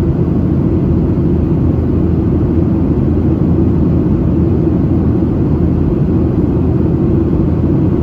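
Steady low rumble of cabin noise in a Boeing 737-700 airliner in flight, heard from inside the cabin: engine and airflow noise, even in level with no change.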